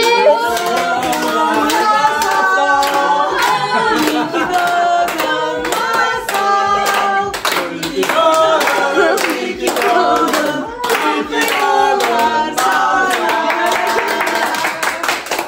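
A group of people singing a birthday song together while clapping their hands in a steady rhythm.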